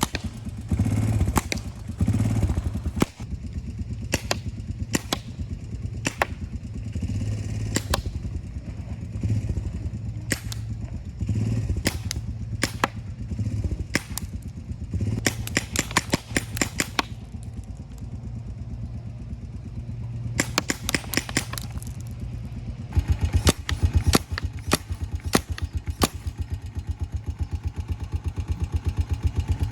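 Honda Recon TRX250 ATV's single-cylinder four-stroke engine running, with a mounted paintball gun firing sharp pops, single shots at first and then in rapid volleys.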